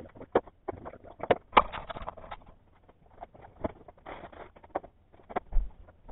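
Irregular clicks, taps and knocks from tools and metal parts handled on a workbench, sped up in time-lapse.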